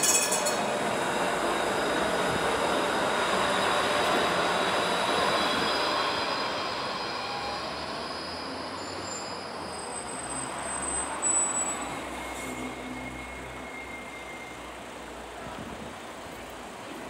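A tram rumbling past on its rails and moving away, the noise fading over the second half, with thin high squeals from its steel wheels near the start and again about two-thirds of the way through.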